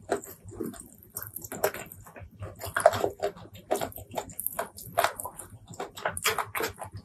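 Close-miked chewing and wet, smacking mouth sounds of someone eating with her hands, in short irregular strokes.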